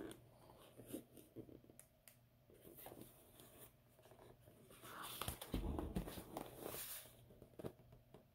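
Faint handling noises of a cardboard collector's box being turned over in the hands: scattered light taps and fingers rubbing on the card, with a louder stretch of rubbing and a soft thump about five seconds in.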